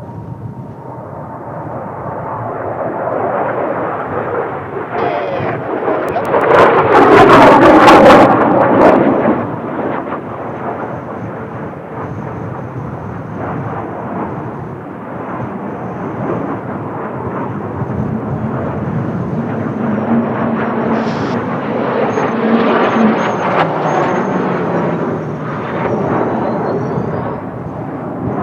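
Kawasaki T-4 jet trainers passing low, their jet noise swelling to its loudest about seven to nine seconds in as they go by, then a steady jet rumble as they fly on.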